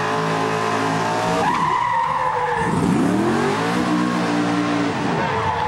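A drill-team racing vehicle's engine running at high revs, then its tires squealing for about a second from about a second and a half in, followed by the engine revving up and down again.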